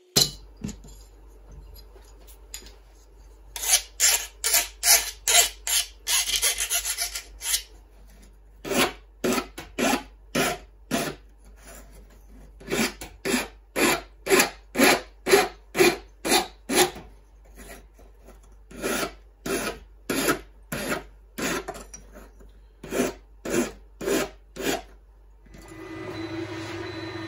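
Hand metal file rasping back and forth along the edge of a 2 mm aluminium capacitor plate, about two strokes a second, in runs with short pauses. Music comes in near the end.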